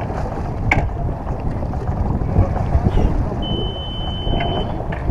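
Wind buffeting the microphone and water noise aboard a sailing yacht under way, with a brief steady high tone about three and a half seconds in.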